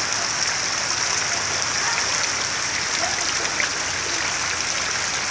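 Heavy rain pouring steadily onto a flooded, muddy yard: a dense, even hiss of drops striking standing water.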